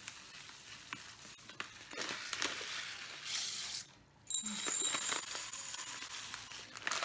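Dry basmati rice poured from its plastic packet into a steel tumbler: a grainy hiss of grains running against metal, with the packet rustling. A measure is tipped out into a plastic bowl a little after three seconds in, the sound breaks off briefly around four seconds in, and the tumbler is filled again.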